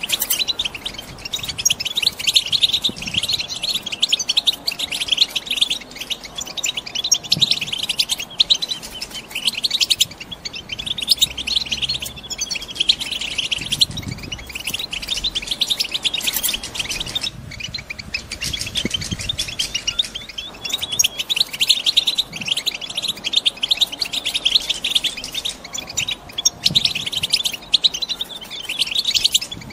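Female European goldfinches twittering in rapid, continuous chatter, thinning briefly about two-thirds of the way through. It is the excited chatter of hens in breeding condition.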